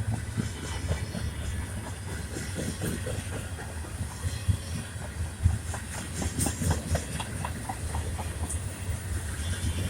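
Freight train cars rolling past: a steady low rumble with the wheels clicking and knocking over the rails.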